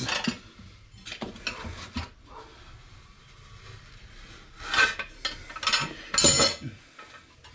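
Metal tyre levers and a motorcycle wheel rim clinking and scraping while the tyre bead is worked off the rim by hand, with rubbing of the rubber against the rim. A few louder metallic clanks come about five and six seconds in as the wheel is shifted.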